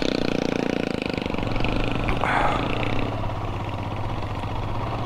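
Motorcycle engine running under load on a rough climb. It is louder and busier for the first second or so, then settles into a steadier, lower note.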